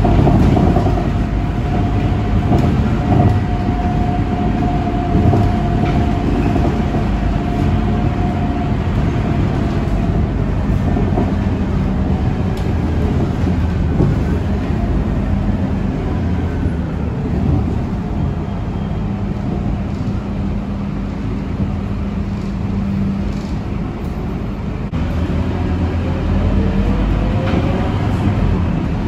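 Inside a Scania K230UB city bus under way: the rear-mounted five-cylinder diesel engine and drivetrain running with steady road and tyre noise. A thin steady whine sounds for the first several seconds.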